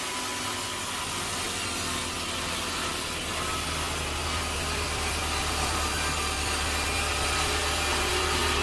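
Sawmill saw running steadily on its engine, a constant low hum under a wide hiss of sawing wood, growing slightly louder.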